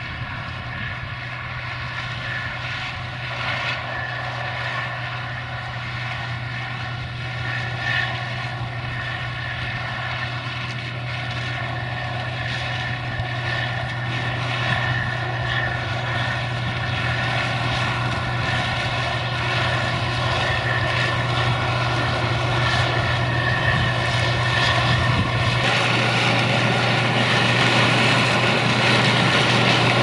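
Steady whine of a multirotor camera drone's propellers over the running CASE IH 2166 Axial-Flow combine harvesting corn. The sound grows gradually louder as the combine comes closer.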